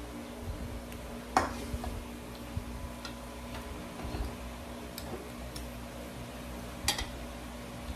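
A few sharp, scattered clicks or taps over a steady low hum, the loudest about a second and a half in and another near the end.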